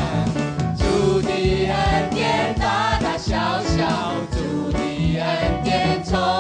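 A worship team of several singers singing an upbeat praise song into microphones, backed by a band with a steady drum beat.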